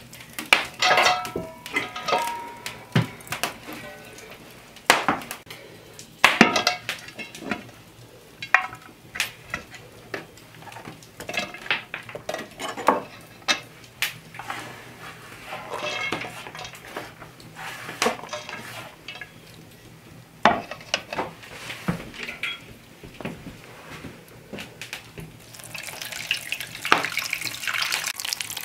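Cookware and kitchen utensils knocking and clinking: a metal pot and a knife handled while cauliflower is cut and broken into the pot, with irregular sharp knocks throughout. A steadier rushing hiss comes in near the end.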